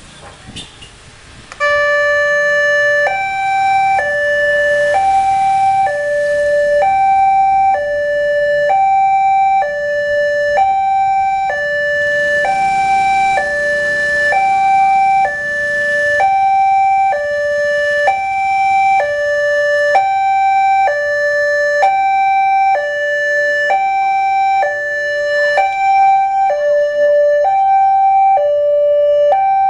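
Railway level-crossing warning alarm sounding from the horn loudspeaker on the crossing signal mast, switching on about two seconds in. It is a steady two-tone electronic signal, alternating between a lower and a higher tone about once a second. It means a train is approaching and the barriers are coming down.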